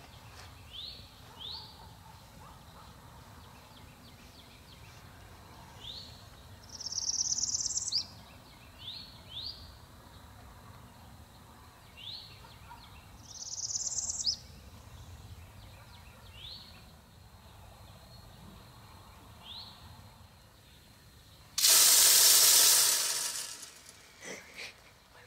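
Birds calling: short rising chirps repeated at irregular intervals, and two longer rising buzzy calls, over a faint outdoor background. Near the end a loud breathy rush of noise lasts about two seconds and dies away.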